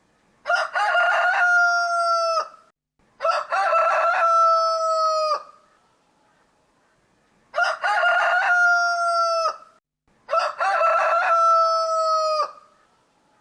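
Rooster crowing four times, in two pairs of back-to-back crows about two seconds each, every crow ending in a long held note that sags slightly in pitch.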